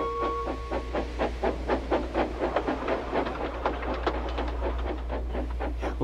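Steam locomotive chuffing at speed: a fast, even run of puffs, several a second.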